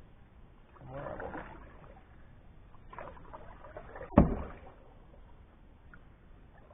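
Paddle strokes of a canoe: a few soft swishes of the blade through the water, and one sharp knock about four seconds in, the loudest sound.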